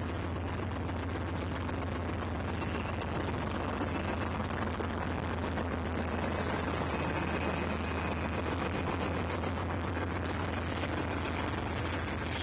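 Canadian National diesel-electric freight locomotives passing close by, their engines running with a steady low drone over the rumble of the moving train.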